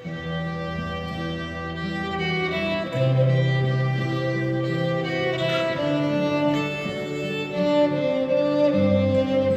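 Violin playing a slow melody in held notes over acoustic guitar accompaniment: an instrumental passage of a worship song.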